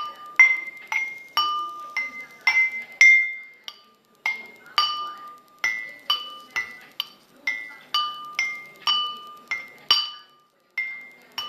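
Water-filled glass drinking cups tapped one after another, about two strikes a second. Each strike rings a clear glassy note, and the notes change between a few different pitches like a simple tune.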